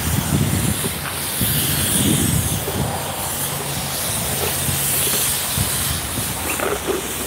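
Wind buffeting a phone's microphone, a gusty rumble over a steady hiss, with a low steady hum for about two seconds in the middle.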